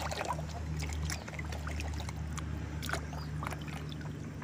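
Muddy water sloshing and splashing in a washbasin as a hand scrubs a small toy car in it, with many small irregular splashes.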